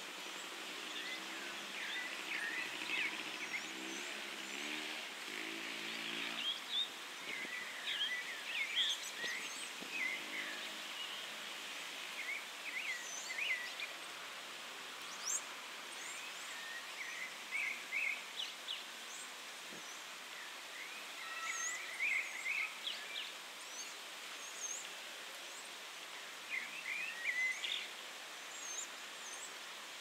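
Several birds chirping and calling at a lagoon: a steady stream of short, quick chirps and twitters. A low pulsing hum runs under them for the first several seconds and again briefly about ten seconds in.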